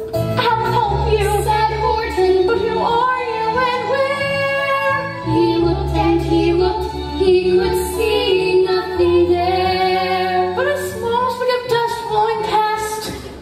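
Children's chorus singing a show tune in unison, holding long notes, over an instrumental accompaniment with a steady bass line.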